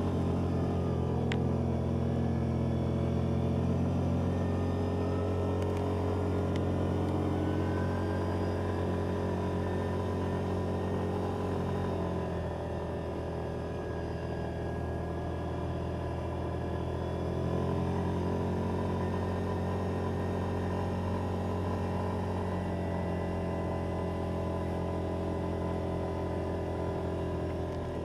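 Yamaha Viking side-by-side's single-cylinder engine running under way, heard from inside the cab. Its pitch drops about twelve seconds in and picks up again a few seconds later as the throttle is eased and reapplied.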